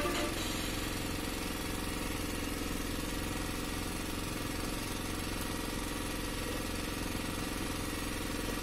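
Small engine aboard a fishing boat running steadily at an even speed, with no change in pitch or loudness.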